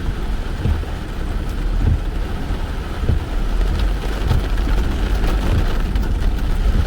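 Subaru Forester on a dirt trail in heavy rain: a steady low rumble with irregular knocks, and a hiss of rain.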